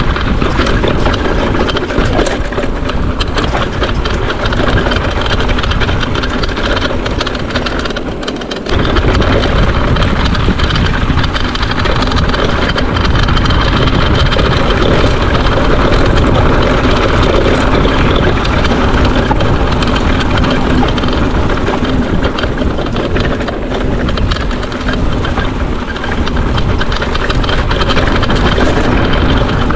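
Mountain bike riding over rough trail: wind rushing on the microphone with a constant rattle and clatter from the bike and tyres. The noise dips briefly about eight seconds in, then comes back just as loud.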